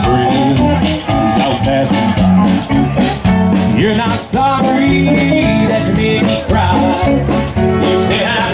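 Live country band playing through PA speakers, with acoustic guitar, fiddle, bass and a drum beat, and a man singing.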